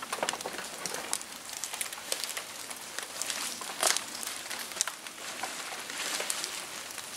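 Nylon tent fabric rustling and crinkling as it is handled and lifted onto a tent pole, with scattered sharp crackles and a louder rustle about four seconds in.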